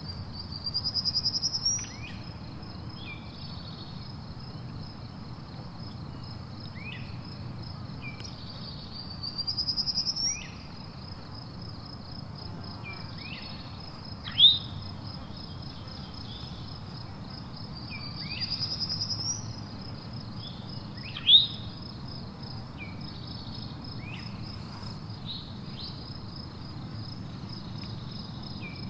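Summer outdoor ambience: insects trill steadily, with a louder rising buzz about every nine seconds. Short downward bird chirps repeat throughout, and two sharp ones stand out about halfway through and about three quarters through.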